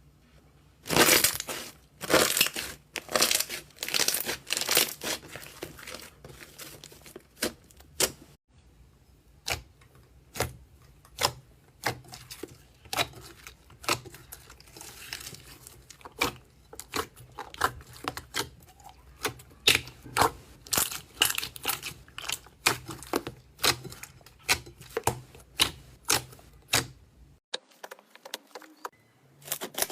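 Slime being squeezed and poked, giving many sharp crackling pops and clicks in an irregular run, densest in the first few seconds. The sound drops out briefly near the end, then the popping starts again.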